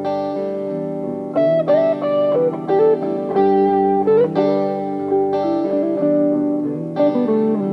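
Fernandes FR-75-3S electric guitar, a 1994–95 Japanese-made model, played through an amplifier: chords struck every second or so, with single-note fills that slide or bend in pitch between them.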